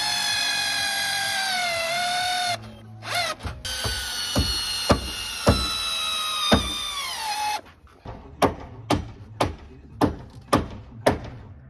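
Cordless drill driving screws into a new timber rafter: two runs of motor whine, each sagging in pitch as the screw bites into the wood and then stopping. After that, a series of sharp knocks, about two a second.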